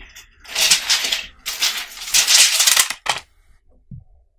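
Rustling and rattling handling noise in two stretches as a fiberglass insulation batt is pressed down and a tape measure is reeled back in, ending in one sharp click about three seconds in.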